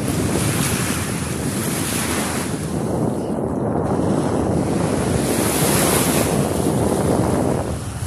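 Small sea waves lapping in shallow water, with wind buffeting the microphone in a steady rush.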